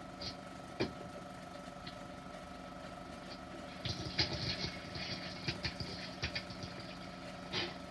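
16mm sound film running through a projector: a steady motor-like hum with scattered clicks and crackles from the worn optical soundtrack, busier about halfway through.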